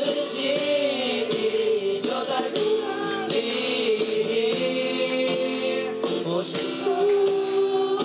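Several young voices singing together to a strummed acoustic guitar, performed live.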